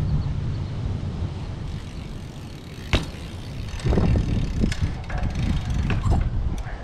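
Wind buffeting the microphone over a 24-inch trials bike riding on concrete, with one sharp knock about three seconds in, then uneven thuds, rattles and light ticks from the bike.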